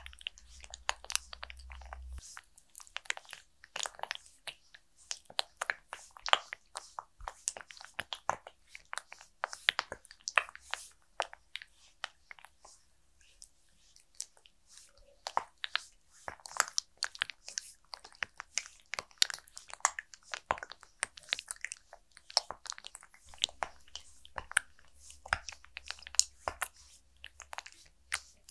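Oiled fingers massaging the face of a mannequin head: an irregular stream of short close-up clicks and slides of skin on the rubbery surface, sparser for a few seconds around the middle. A faint low rumble sits under it at the start and again near the end.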